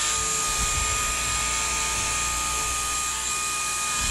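Small electric motor and propeller of an LED flying orb ball toy running at full speed, a steady high-pitched whine.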